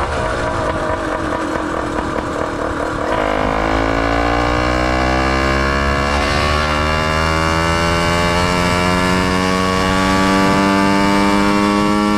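Small engine of a motorized bicycle under way, running with a blown exhaust gasket. It runs rough for the first few seconds, then settles into a steady note that climbs slowly as it gathers revs.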